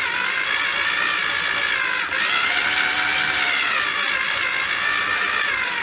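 Built-in 1000 W Multi-Chef mixer motor driving a dough hook as it kneads bread dough in a stainless steel bowl. It runs with a steady whine whose pitch rises and sags twice, each swell lasting about two to three seconds.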